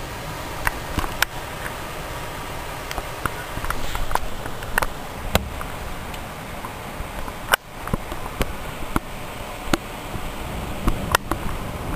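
Heavy rainstorm: a steady rush of rain and wind, with irregular sharp ticks, about one a second, of drops striking a nearby hard surface.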